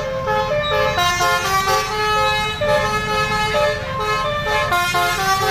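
Bus 'telolet' horn (a multi-tone basuri horn) playing a quick tune of changing notes, one pitch after another, over a low rumble.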